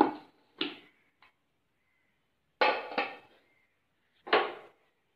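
An aluminium pressure cooker's lid being opened and handled: a few short metallic clatters, about one to two seconds apart, with dead silence between them.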